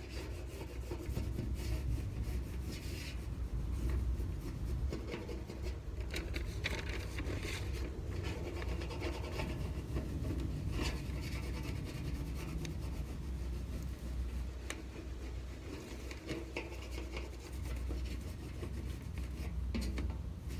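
Crayon rubbed back and forth over paper laid on a galvanized metal trash can lid, in many quick scraping strokes, over a low steady rumble.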